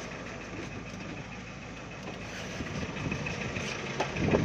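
Mahindra Scorpio idling with a 'ghat ghat' rattle from inside the dashboard, a sign of a loose part in the dash, and a knock near the end.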